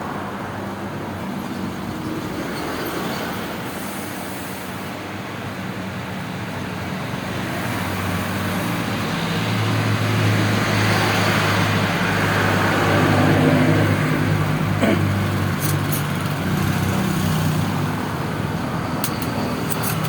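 Road traffic: a motor vehicle's engine running as it passes, the noise swelling to its loudest about two-thirds of the way through and then easing off.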